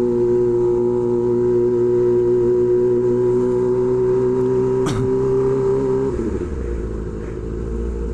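Kawasaki Ninja ZX-25R's inline-four engine through an SC Project exhaust, running at a steady high-revving note while riding. A sharp click comes about five seconds in. Around six seconds the throttle comes off and the note drops and wavers as the bike slows.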